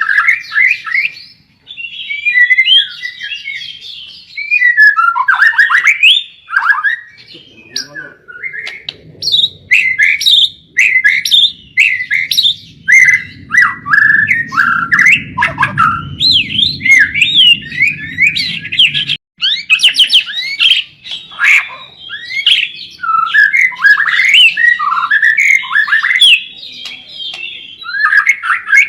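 White-rumped shama (murai batu) singing continuously and energetically, a rapid run of varied whistles, chirps and trills. A low steady noise sits under the song for about ten seconds in the middle.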